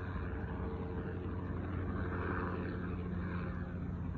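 Helicopter flying overhead at a distance, a steady low drone that swells slightly partway through.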